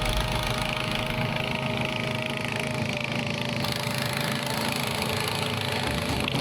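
Small engine of a motosobaka (tracked snow tug) running steadily while driving along.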